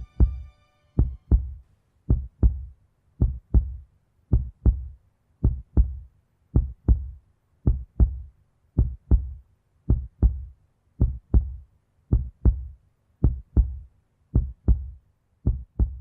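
Heartbeat sound effect: deep double thumps, lub-dub, repeating steadily a little under once a second.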